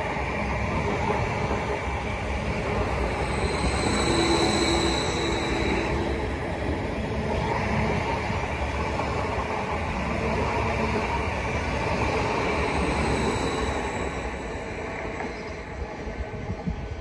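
Electric passenger train running past close by: a steady rumble and clatter of wheels on rail, with a faint high wheel squeal twice. The noise fades as the last carriage clears near the end, and there is a short sharp knock just before it ends.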